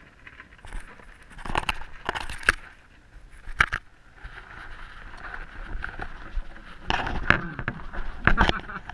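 Hamster scratching and knocking against a GoPro camera and rustling in wood-shaving bedding: irregular clicks and scrapes, one group in the first half and another near the end.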